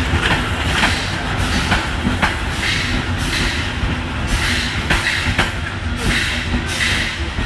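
Vintage passenger coaches of a steam special train rolling past close by as it pulls out, the wheels rumbling and clicking over the rail joints. From about halfway through, a rhythmic hiss comes in at about two beats a second.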